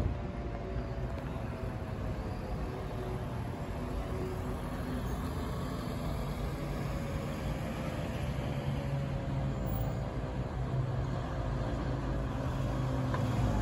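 Street traffic noise with a car driving past, and a fire engine's engine rumble growing louder toward the end as it approaches. A faint siren tone slowly falls in pitch throughout.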